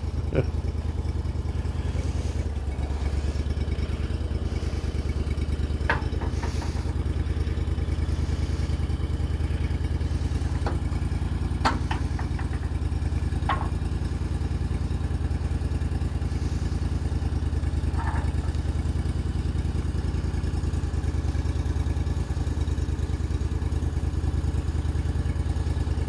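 Honda engine of a portable bandsaw sawmill running steadily, with a few light knocks and clinks here and there.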